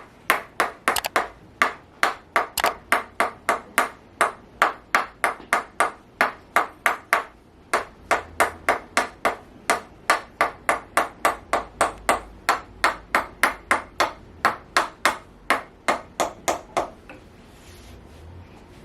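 A rapid, even series of sharp clicking taps, about three a second, that stops about seventeen seconds in.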